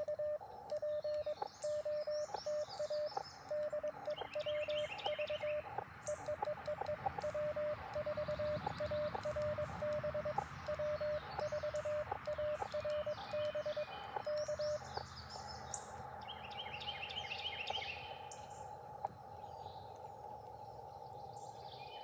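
Elecraft KX2 transceiver's Morse code tone at one steady pitch, keyed in dits and dahs with small clicks of the paddle key: CW being sent. About fifteen seconds in the keying stops and the receiver's narrow band hiss comes up. Birds chirp in the background.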